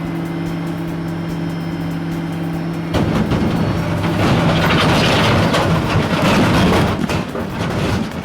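A vehicle's engine sound: a steady hum for about three seconds, then a sudden change to a louder, rougher rushing noise that swells and eases off near the end.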